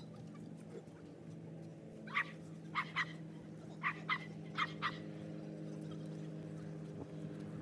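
A dog barking, short sharp barks in quick pairs starting about two seconds in, over a steady low hum.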